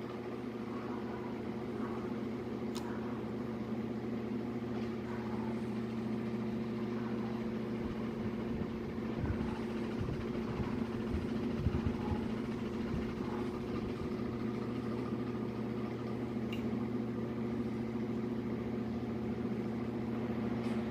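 Steady mechanical hum with a constant pitch, with a few soft low bumps about nine to thirteen seconds in.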